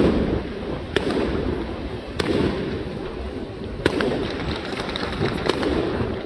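Fireworks and firecrackers going off all around: a dense, continuous rumble of many explosions, with a sharp nearby bang about every one to two seconds.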